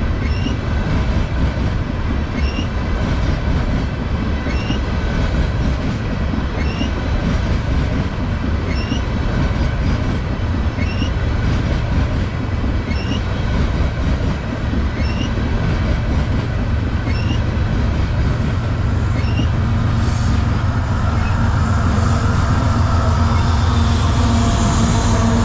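Freight train cars rolling past close by: a heavy steady rumble of wheels on rail with a regular click about once a second. About 20 seconds in, the diesel-electric locomotives come alongside, and their steady engine drone grows louder toward the end.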